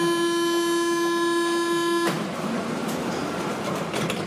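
Paris Metro Line 1 train's door-closing warning: a loud, steady single-pitched buzzing tone that cuts off sharply about two seconds in, followed by a rushing noise as the doors slide shut.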